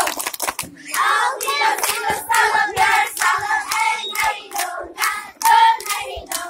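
A group of children singing a game song together while clapping their hands in time, about three claps a second.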